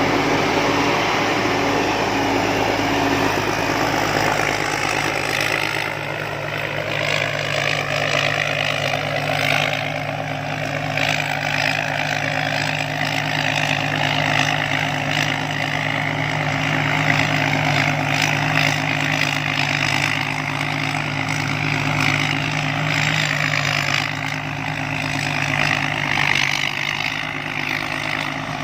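Combine harvester's engine running steadily, with a whine that rises in pitch from about six seconds in.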